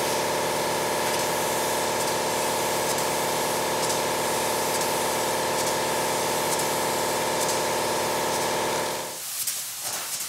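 Air-fed paint spray gun hissing steadily as it sprays black paint onto a panel, with a steady whistling tone running through the hiss. It cuts off suddenly about nine seconds in as the trigger is released.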